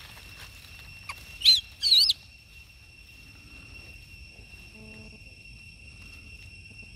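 Two short, high-pitched squeals from a young macaque, about 1.5 and 2 seconds in, each one rising and falling in pitch. Under them runs a steady high insect drone.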